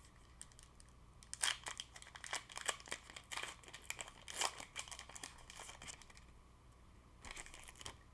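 Foil wrapper of a Pokémon card booster pack crinkling and tearing as it is opened, in irregular bursts of crackling from about a second in until about six seconds, then briefly again near the end.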